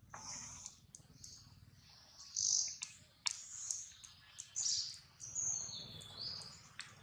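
A string of short, high-pitched chirping and squealing animal calls. The loudest comes about two and a half seconds in, and a call falls in pitch near the end.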